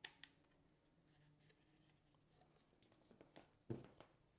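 Faint handling of a small plastic camera and its USB cable: a light click at the start as the plug goes into the camera's side, then a few soft taps and knocks near the end as the cable and camera are moved.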